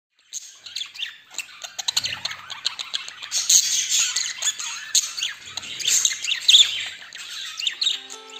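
A flock of budgerigars chattering with rapid chirps and squawks. Music comes in near the end.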